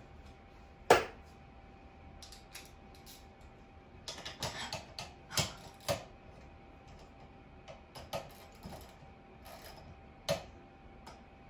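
Scattered small metal clicks and clinks of a bolt, nut and hand tools being handled against the steel frame of an Earthway garden seeder during assembly, with one sharp click about a second in and a cluster of clicks around the middle.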